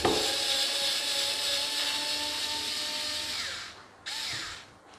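Xiaomi Mijia 3.6 V rechargeable electric screwdriver running in reverse, its small motor and gearbox whirring steadily with a faint whine as it backs a screw out of wood. It stops about three and a half seconds in, then gives one short second burst.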